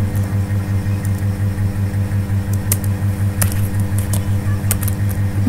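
A few computer keyboard keystrokes clicking during typing, over a loud steady low hum that pulses rapidly.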